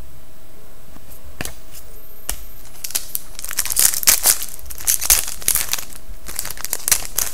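Foil wrapper of a hockey card pack being torn open and crinkled by hand. It goes in a quick run of crackles from about three seconds in, after a couple of single clicks.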